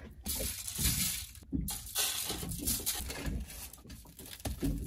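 Food-prep handling noise: a knife slicing through raw pork loin on a plastic cutting board, then hands rubbing a dry spice rub into the meat on crinkling aluminium foil.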